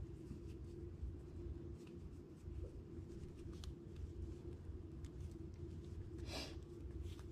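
Quiet room hum with a steady low drone, faint scattered ticks of hands handling fishing line, and one short rustle a little over six seconds in.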